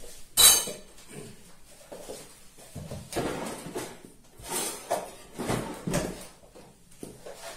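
A metal spoon stirring flour and baking powder in a stainless steel bowl, scraping and tapping against the bowl, in place of sifting. One sharp clack about half a second in is the loudest sound.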